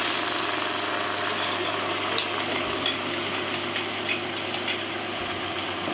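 Onion-and-ground-tomato masala sizzling in a pan over a steady machine-like hum, with a few light clicks scattered through the middle.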